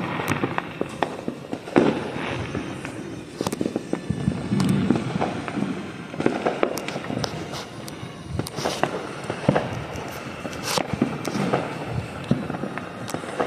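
Fireworks going off in the distance: an irregular run of sharp pops and bangs over a low rumble.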